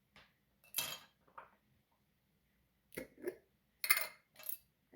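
Scattered clinks and knocks of kitchen utensils against a bowl, about seven short strikes with the loudest about one second in and another near the end.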